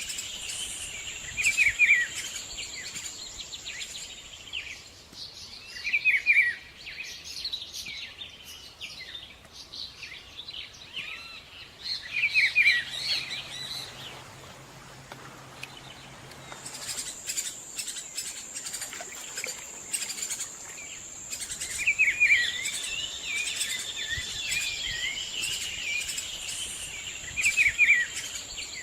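Wetland birdsong: many birds calling and chirping, with one bird's short loud phrase repeating every few seconds, over a steady high insect buzz that fades out for a while mid-way and then comes back.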